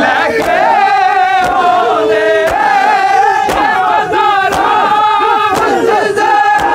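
Crowd of Shia mourners chanting a noha (mourning lament) together, with a sharp slap of collective chest-beating (matam) about once a second.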